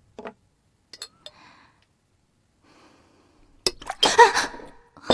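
A porcelain teacup knocked over, with a sharp clink against the table about three and a half seconds in, followed by a short, loud breathy gasp.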